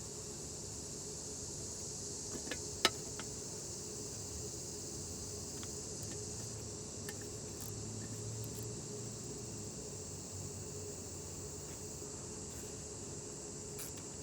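Steady high-pitched insect drone over a low background hum, with one sharp click a little under three seconds in and a few faint ticks later.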